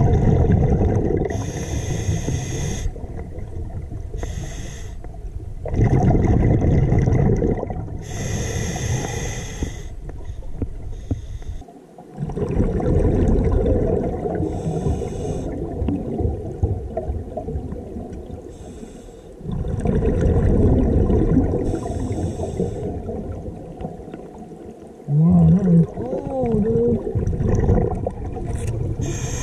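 Scuba diver breathing through a regulator underwater: short hissing inhales alternating with long rumbling, bubbling exhales. A short wavering hum about 25 seconds in.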